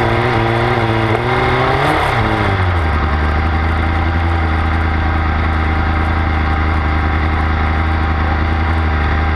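Formula SAE race car's engine running at low revs as the car rolls slowly, then dropping to a steady idle about two seconds in.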